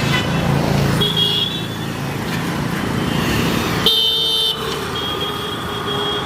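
Road traffic with engines running and vehicle horns honking: a short toot about a second in and a louder, longer honk about four seconds in.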